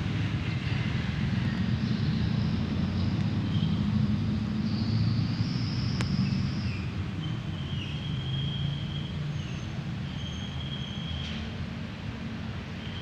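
Low rumble of street traffic that swells over the first few seconds and then eases off, with thin high whistling tones coming and going above it.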